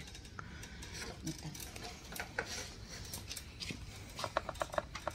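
Rustling and scattered light clicks of a bunch of grapes being handled and set into a plastic mesh basket, with a quick run of sharp clicks near the end.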